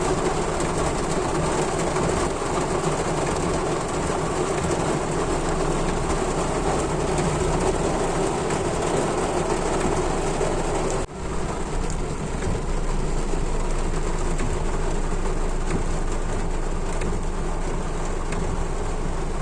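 An excavator running steadily, a dense mechanical rumble that drops out for a moment about eleven seconds in.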